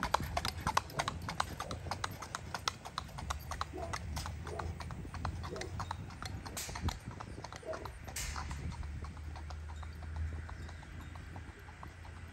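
Horse trotting on a paved road in harness, pulling a two-wheeled cart: a steady clip-clop of hooves on asphalt that grows fainter as the horse moves away.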